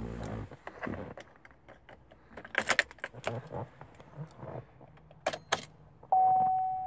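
Key ring jangling and clicking as the ignition key is put in and turned in a 2014 GMC Sierra. Near the end, as the dashboard lights up with the engine not yet running, a single steady dashboard warning chime sounds and slowly fades.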